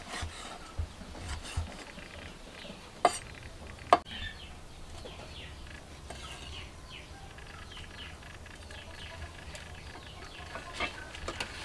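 A cleaver chops pork on a wooden chopping block a few times at the start. About three seconds in come two sharp knocks a second apart. Then birds chirp in the background.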